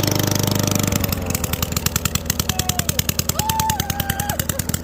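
Straight-piped single-cylinder lawn mower engine, its muffler and air filter removed, running with a rapid, even train of sharp exhaust pops. It eases slightly about a second in.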